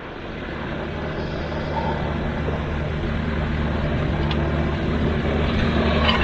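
Excavator's diesel engine running steadily with a low hum, growing gradually louder.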